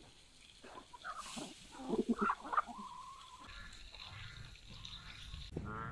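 Domestic chickens clucking and calling, a cluster of short calls about two seconds in and a longer held call just after. A goose starts honking right at the end.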